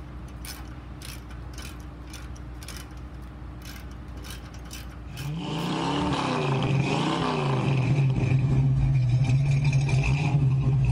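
Ratcheting socket wrench tightening the nut of an exhaust band clamp, clicking about twice a second. About five seconds in, a louder car engine takes over, revving up and down several times and then holding a steady drone.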